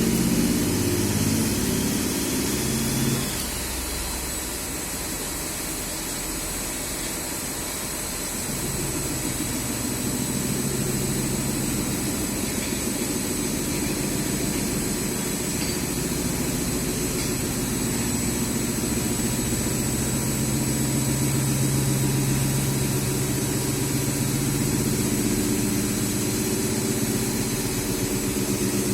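A motor running with a steady low hum; it drops in level about three seconds in and builds back up after about eight seconds.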